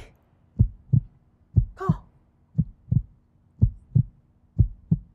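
Heartbeat sound effect: slow, evenly spaced double thumps, lub-dub, about one beat a second, building tension.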